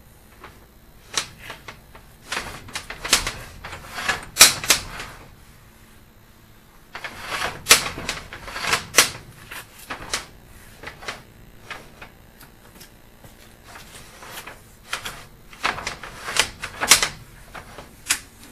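Sewer inspection camera and its push cable being fed down a drain stack, clicking, knocking and scraping against the pipe in three bursts of irregular clatter with short pauses between.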